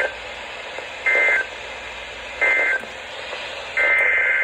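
Weather-radio SAME data bursts, a harsh two-tone digital warble, over radio hiss. Two short bursts come a little over a second apart, the end-of-message code closing the first warning. Then, near the end, a longer burst begins: the header of a second alert.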